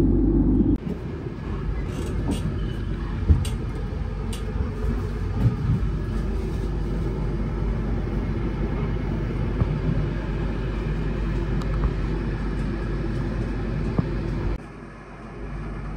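Passenger train running, a steady low rumble with a few sharp clicks in the first few seconds. The sound changes abruptly about a second in and drops again near the end.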